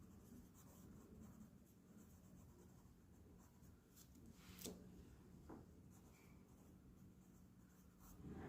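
Faint scratching of a pen writing by hand, with a couple of soft ticks about four and a half and five and a half seconds in.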